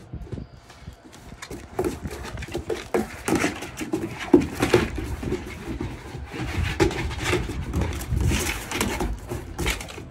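Great Dane puppies play-fighting: many short growling vocal sounds over scuffling. The sounds pick up about two seconds in.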